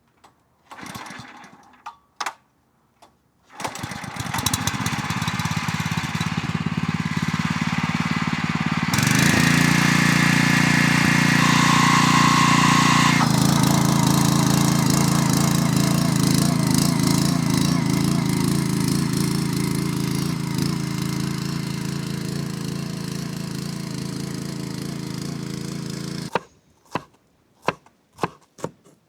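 A small motor runs steadily and steps up to a higher speed about five seconds after starting, then stops suddenly. Clicks and knocks come before it starts and after it stops.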